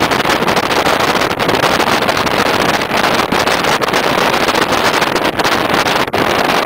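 Steady rush of wind on the microphone while travelling along in a moving vehicle, with the vehicle's running noise mixed in.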